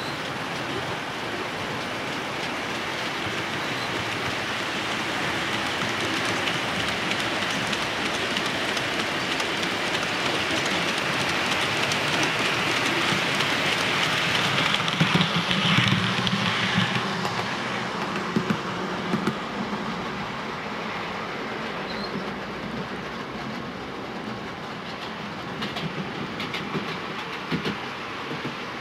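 OO-scale model freight wagons rolling along the track with a steady rumble, their wheels clicking over the rail joints and pointwork. The rumble swells to its loudest as the train passes, about halfway through, and sharp clicks follow from there on and again near the end.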